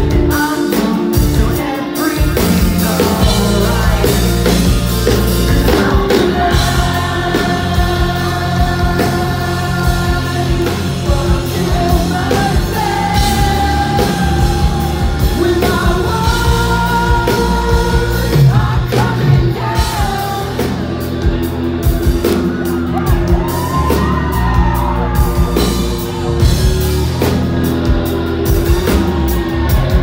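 Live rock band playing, with a singer's voice sung and yelled over electric guitars, bass and drums.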